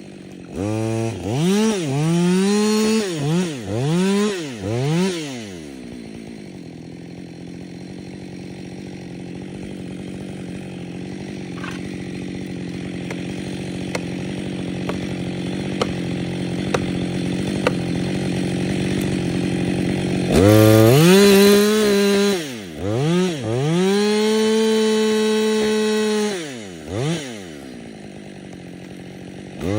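Two-stroke chainsaw blipped up and down in quick revs, then idling steadily for about fifteen seconds with a few faint ticks. It then runs at high revs for two long holds, with short revs between and after them.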